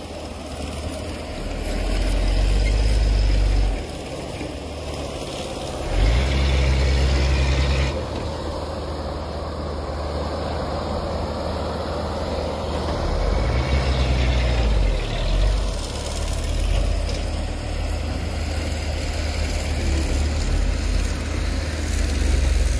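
Loaded dump truck's diesel engine running, revving up in several swells, about two seconds in, six seconds in and near the middle, as the truck pulls away over soft dirt.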